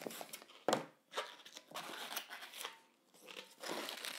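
An inflated latex modelling balloon being handled and knotted by hand: rubbing and rustling of the rubber in short bursts, with a sharp snap about two thirds of a second in.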